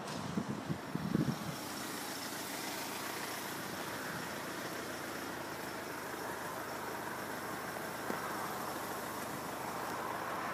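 Truck engine idling steadily while it waits at a closed level crossing, with a few low thumps in the first second or so.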